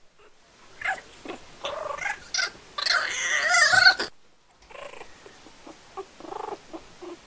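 A kitten and a puppy scuffling in a play-fight, with a loud hissing, yowling cry from the kitten about three seconds in and a string of short, quieter high cries near the end.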